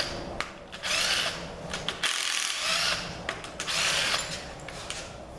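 A wrench working bolts loose on a Ford 302 V8 during teardown, in several short bursts of rattling with brief pauses between them.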